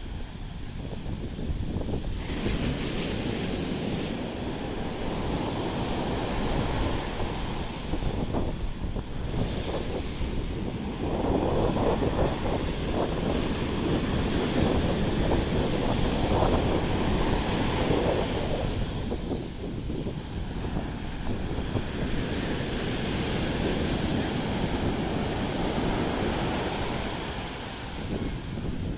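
Sea waves breaking and washing onto a beach, with wind buffeting the microphone. The surf swells loudest around the middle.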